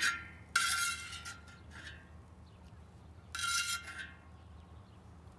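A metal utensil clinks, then scrapes against the pan twice, each scrape about half a second long, as cooked beef fajita filling is scooped out.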